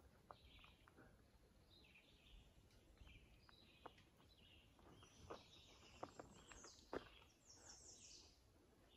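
Faint woodland birdsong: several songbirds repeating short chirps and trills, with a few soft clicks scattered through.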